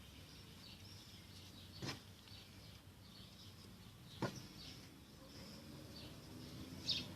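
Faint bird chirping in the background, with two light sharp knocks about two and four seconds in.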